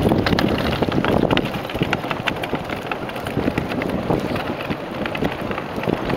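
Steel runners or blades travelling fast over rough ice: a continuous scraping rumble full of crackling clicks, with wind buffeting the microphone.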